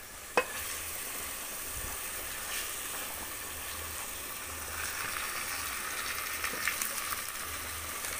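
Chicken pieces sizzling in oil in a metal pot over low heat as they are stirred with a spatula: a steady crackling hiss with a sharp knock about half a second in.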